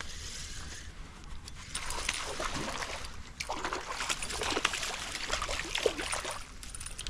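Water splashing and sloshing, mostly from about two seconds in until shortly before the end, as a freshly hooked smallmouth bass is fought in the river.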